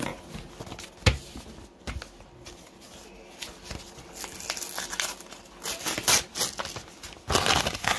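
A paper envelope being torn open and the papers inside rustled and crinkled, with a sharp knock about a second in and a louder burst of paper noise near the end.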